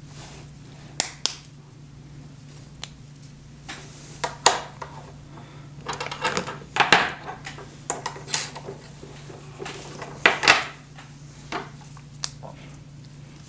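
Irregular clicks and knocks of 3D-printed plastic gearbox parts and small ball bearings being handled and pressed into place, with a steady low hum underneath.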